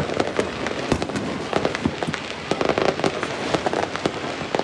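Fireworks and firecrackers going off all around: a dense, irregular run of sharp bangs over constant crackling.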